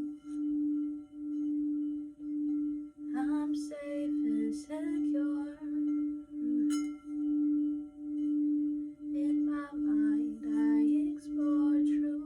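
Sound bowl sounding one steady ringing tone that swells and dips a little more than once a second. Short wavering higher-pitched sounds rise over it about three seconds in and again near ten seconds.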